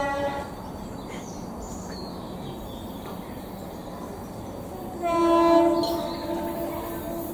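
South Western Railway electric multiple unit sounding its horn. A two-tone blast ends on its lower note just at the start, then a longer single-note blast begins about five seconds in and fades away over about two seconds.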